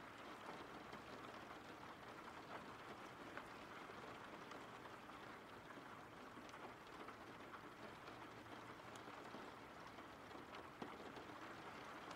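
Faint steady rain, an even hiss with scattered soft drop ticks.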